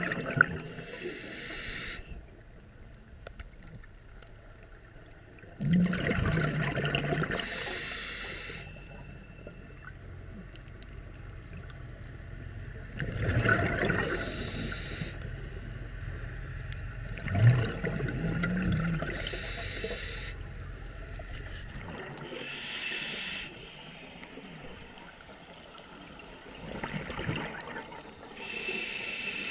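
Scuba diver breathing through a regulator underwater: a bubbling, gurgling exhale followed by the hiss of an inhale, repeating about every six to seven seconds.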